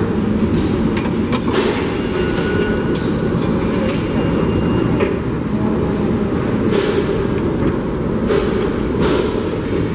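R188 subway train running on the rails, a steady loud rumble with scattered sharp clacks of wheels over rail joints.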